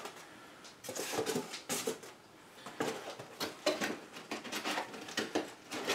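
Styrofoam packing blocks being handled in a cardboard shipping box: irregular squeaks, rubs and light knocks.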